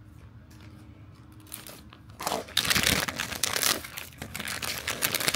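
Foil blind bag crinkling and tearing as it is opened by hand, with rapid crackling that starts about two seconds in after a quiet start.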